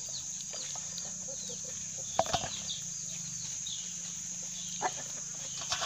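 Rural outdoor ambience: chickens and small birds chirping in short falling calls over a steady high insect drone. A few faint clicks sound about two seconds in and near the end, from hands working masala stuffing into okra in a steel bowl.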